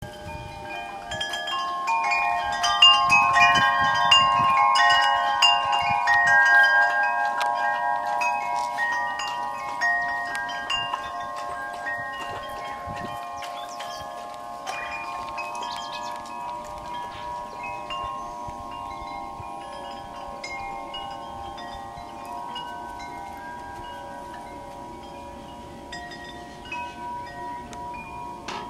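Wind chimes ringing: many overlapping metal tones, struck often and loudest in the first several seconds, then with fewer strikes and slowly fading.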